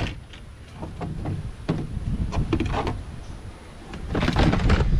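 A plastic tackle tray being handled and lifted out of a plastic milk crate: scattered clicks and knocks, louder near the end, over a low rumble of wind on the microphone.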